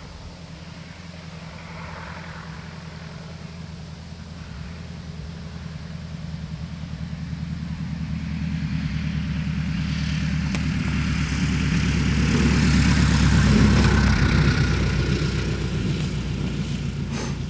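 Light bush plane's piston engine and propeller running with a steady, pulsing drone as it lands and rolls out on a grass strip, growing louder to a peak about 13 seconds in as it passes close by, then fading somewhat. A short sharp click near the end.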